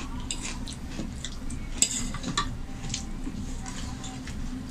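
A fork and spoons clinking and scraping on ceramic plates and a soup bowl during a meal, with scattered light clicks and one sharper clink about two seconds in, over a low steady hum.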